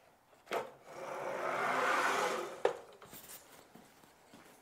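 A plywood saw carrier sliding down the chainsaw mill's vertical conduit rods. There is a knock first, then about two seconds of rubbing that swells and fades, and it ends in a sharp clunk as the carrier reaches the bottom.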